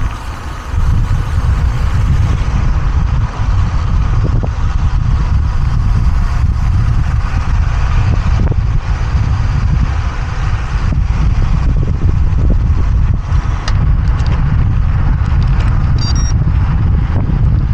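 Wind buffeting the microphone: a loud, steady low rumble without any clear engine note.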